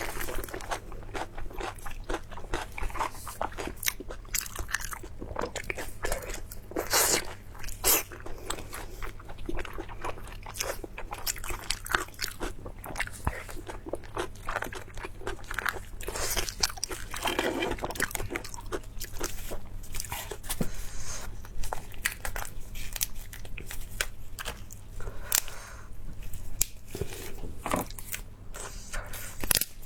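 Close-miked eating: a person biting, crunching and chewing food, with a dense run of sharp crackly bites and wet mouth smacks.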